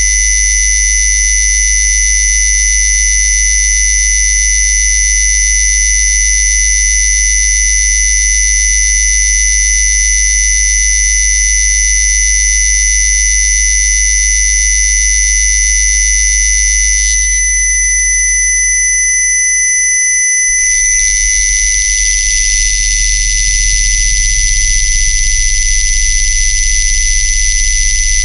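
Loud synthesized electronic test tone: a steady low hum under a shrill, high-pitched whine made of several pure tones. About two-thirds of the way through, the high tones thin out and the hum drops away for a few seconds, then both come back with a rougher, hissing edge.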